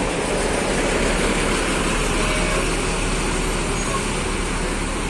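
Mercedes-Benz coach's diesel engine running steadily as the bus pulls away.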